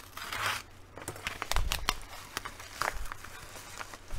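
Paper envelope crinkling and rustling as it is handled, in irregular sharp crackles.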